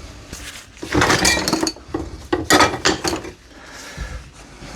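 Old metal hand tools clinking and knocking against each other as they are rummaged in a box and handled, in two bursts of rattling.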